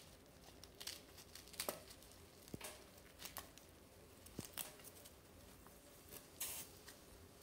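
Faint, scattered crisp snaps and rustles of fresh dandelion greens being torn by hand and dropped into a camp pot.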